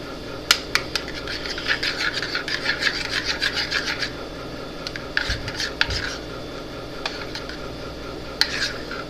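Slime mixture being stirred and scraped in a bowl with a utensil: a quick run of rubbing strokes in the first few seconds, then shorter scrapes and a few clicks.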